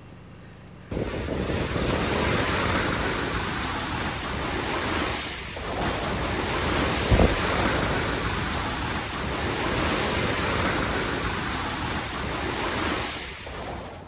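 Wind rushing over the microphone and tyre noise from a vehicle driving on a dirt road, starting suddenly about a second in and fading near the end, with one short thump about halfway through.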